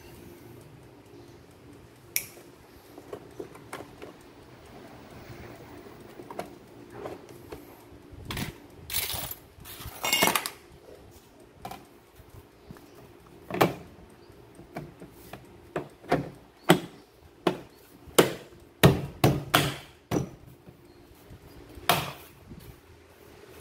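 Irregular clicks and knocks of tools and hard parts being handled on a repair bench, with a faint steady hum underneath.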